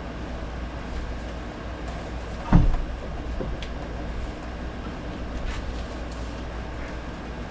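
One loud thump about two and a half seconds in, followed by a lighter knock and a few faint clicks, over a steady low rumble.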